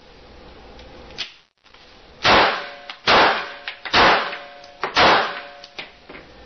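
Four gunshots about a second apart, fired at a bulletproof vest, each followed by a brief metallic ring.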